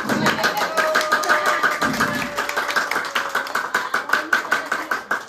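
A group clapping fast and in a steady rhythm, with music and a long held note playing over the claps.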